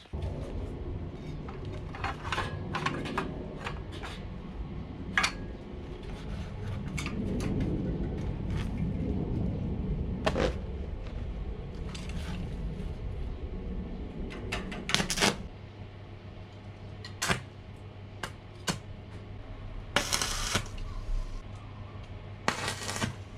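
Metalworking on steel pipe: scattered sharp metallic clicks, taps and knocks over a steady low hum. The hum thins to a single steady tone about two-thirds of the way through.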